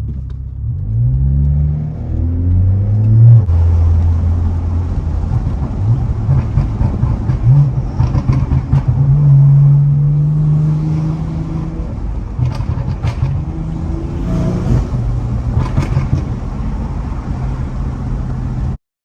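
BMW 440i's tuned B58 3.0-litre turbocharged inline-six with a catless downpipe, accelerating with its pitch rising for about three seconds, then running at fairly steady engine speed under way. A few short sharp clicks come in the second half, and the sound cuts off suddenly near the end.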